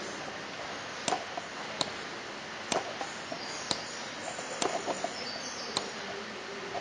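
Single sharp clicks of a computer mouse, about six of them at irregular intervals roughly a second apart, as Channel Mixer values are set in Photoshop. A steady hiss lies under them.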